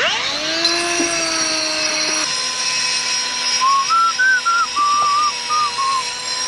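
A handheld angle grinder for the concrete wall blocks spins up with a rising whine, then runs steadily, its pitch dropping a little about two seconds in. From about three and a half seconds a person whistles a short tune over it.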